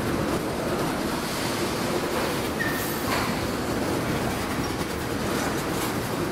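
Freight train rolling past, a steady rush of wheels on rail, with a short high squeal about two and a half seconds in and a sharp clank just after.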